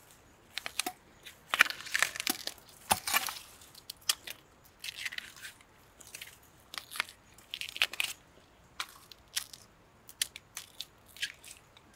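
Fresh bamboo shoot having its tough outer sheath peeled off by hand: a string of short, irregular crackling tears and crunches as the layers strip away from the tender inside.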